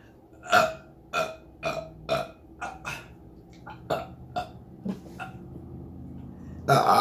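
A person burping: a quick series of about ten short burps, roughly two a second, then a longer, louder burp near the end.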